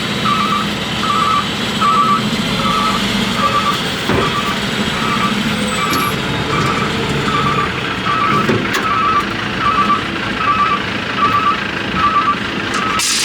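Backup alarm beeping steadily, about one and a half beeps a second, over a running diesel engine, with a short burst of hiss near the end.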